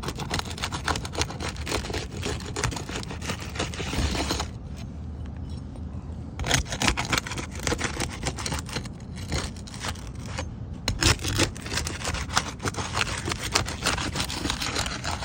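Roof shingle being worked loose from the shingle beneath it, scraping and crackling. The sound is dense for about the first four seconds, then turns into scattered scrapes and clicks with a few louder strokes. The shingle is old and brittle.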